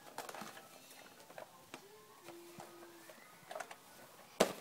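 Quiet handling of cardboard product boxes: light taps, scrapes and rustles, with a sharper knock near the end.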